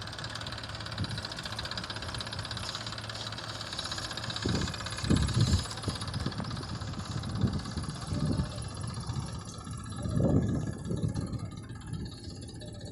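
A heavy-machinery diesel engine runs steadily, with several louder low surges partway through.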